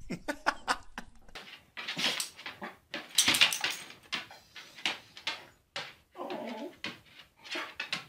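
Cocker spaniel sneezing again and again: about six sharp, hissing sneezes roughly a second apart, the loudest about three seconds in. A few short clicks come in the first second.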